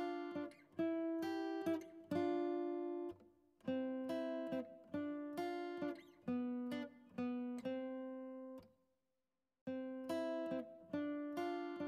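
Background music of plucked acoustic guitar, each note ringing and fading, with a short break about nine seconds in.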